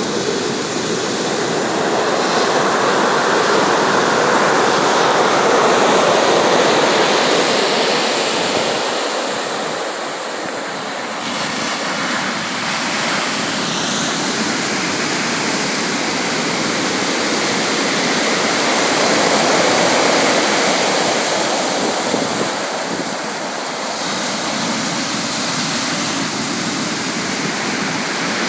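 Sea surf: waves breaking and washing continuously, in slow swells that build over several seconds and ease off again.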